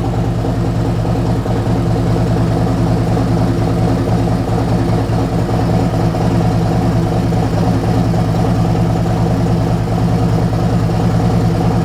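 Harley-Davidson Road Glide Special V-twin with a Stage 2 upgrade running steadily at an even speed, loud through its new muffler.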